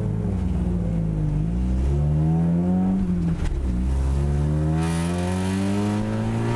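Car engine accelerating hard, its pitch climbing steadily. About three and a half seconds in it drops sharply as it changes up a gear, then climbs again through the next gear.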